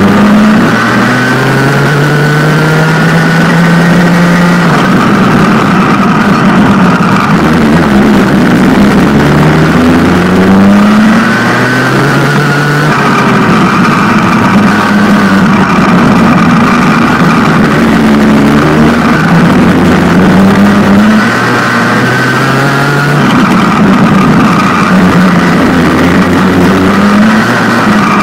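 Racing kart's rotary engine running hard on track, its pitch climbing as it accelerates and then dropping back before climbing again, over and over as it goes from corner to corner.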